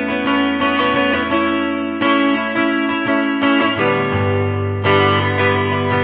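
Background music led by guitar, with plucked notes and chord changes every second or two.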